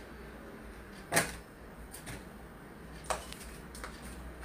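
A few sharp knocks and clicks of a spoon and wire whisk against a plastic mixing bowl and a margarine tub as margarine is scooped out. The loudest knock comes about a second in, another about three seconds in.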